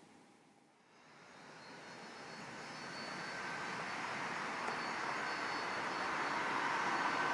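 Boeing 737-800's CFM56 jet engines growing steadily louder from about a second in, a rising rush with a steady high whine over it, as the jet powers up for takeoff.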